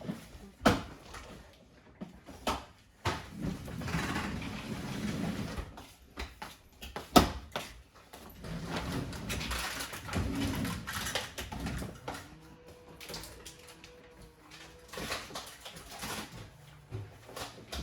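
Knocks and clatter, with two longer stretches of scraping or sliding, as things are handled and moved around a kitchen.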